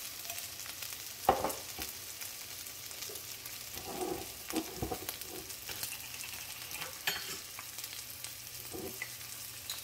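Onions, bell peppers and green chillies frying in oil in a frying pan, sizzling steadily, with a few sharp clicks and ticks, the loudest about a second in.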